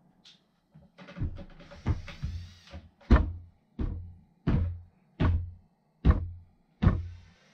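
Heavy knocks against a cement-board wall panel, six of them at slightly uneven spacing, about one every three quarters of a second, each with a short low boom. A brief rising whir comes before them.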